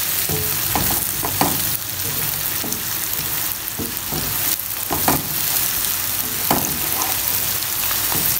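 Chopped onions, cabbage, tomatoes and green chillies sizzling steadily as they are sautéed in a frying pan. A wooden spatula stirs them, with irregular scrapes and knocks against the pan.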